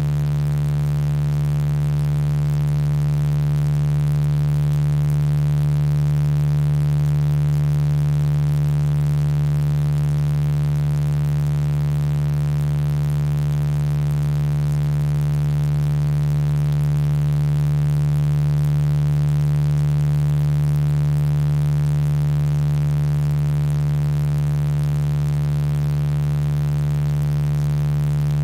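Steady synthesized sound-healing tones made from a voice sample. A strong low hum with a deeper tone beneath it and many fainter higher tones above cuts in suddenly out of silence, then holds without change.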